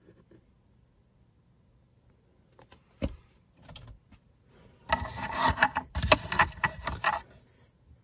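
Metal costume jewelry clinking and rattling in a wooden box as a hand rummages through it for the next piece. A single click comes about three seconds in, then a busy clatter of small metal clicks for about two seconds.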